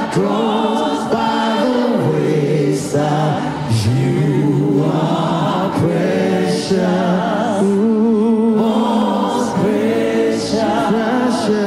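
Choir singing a slow gospel worship song, long notes held with vibrato.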